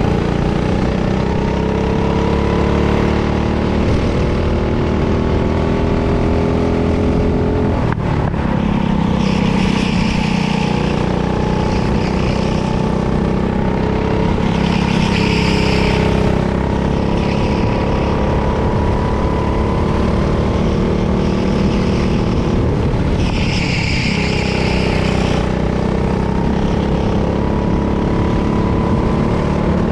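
Go-kart engine running hard on track. Its revs drop sharply twice, about eight seconds in and again about two-thirds through, then build back up. A hissing noise comes and goes several times over the engine.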